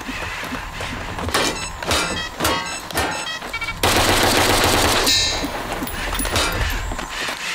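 Rifle gunfire: several single shots, each with a short metallic ring, then about four seconds in a dense burst of automatic fire lasting about a second, followed by a brief high ringing.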